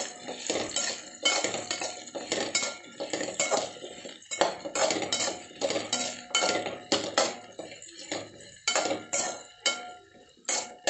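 A perforated steel spatula scraping and knocking against a steel kadai as carrots, drumstick pieces and shallots are stirred in oil, in quick irregular strokes that grow fainter near the end.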